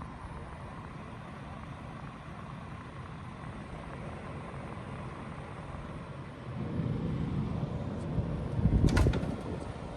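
2019 LG Dual Inverter 9,500 BTU window air conditioner running with a steady whoosh. A louder low rumble swells in about six and a half seconds in, and a short louder rumble with a few clicks comes near the end.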